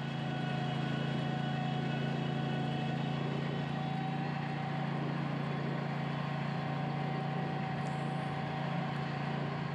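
Zero-turn mower's Kohler engine running steadily at its governed 3600 RPM with the blade deck disengaged. Over the crest of a hill the governor eases the throttle as the load drops, so the engine speed stays constant.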